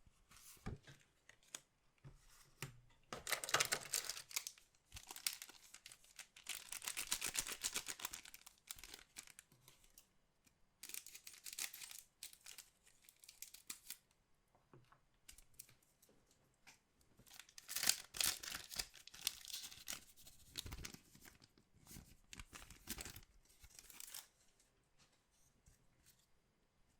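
Collectible-card packaging being torn open and crinkled by hand, in several rustling, crackling bursts with short pauses between them.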